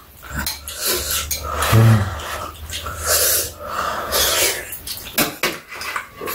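Kalguksu noodles being slurped from bowls, in hissing bursts about three and four seconds in, with chopsticks and a spoon clicking against the bowls.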